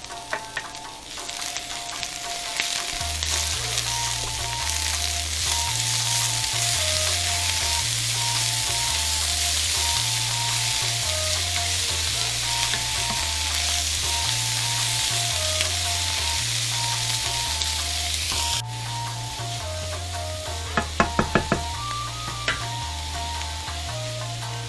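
Cabbage, carrot, bean sprouts and tuna sizzling in a hot oiled frying pan as they are stir-fried with a wooden spatula. The sizzle builds about a second in and drops suddenly about three quarters through, followed by a short run of quick knocks.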